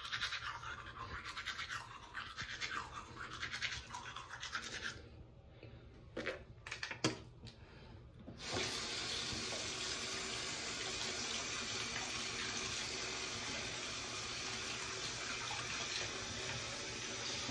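Toothbrush scrubbing teeth in quick rhythmic strokes for about five seconds, then a few small knocks. About halfway through, a bathroom tap starts running steadily.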